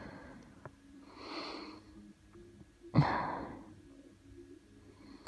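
A person breathing heavily with two noisy breaths. The second, about three seconds in, starts sharply and is the loudest, like a sniff or snort.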